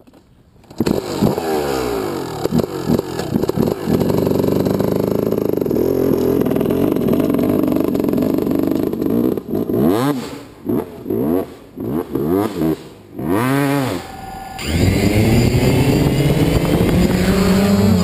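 Motocross dirt bike engine revving, its pitch sweeping up and down over and over, with the throttle cut and reopened several times in quick succession. About fifteen seconds in, a steadier, lower drone takes over.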